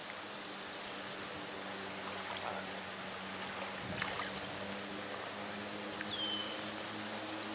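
Steady rush of creek water, with a hooked trout splashing at the surface about four seconds in. A short high chirp sounds near the end.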